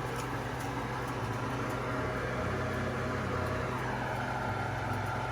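A pot of tomatoes and red peppers simmering on the stove, faint scattered ticks over a steady low hum.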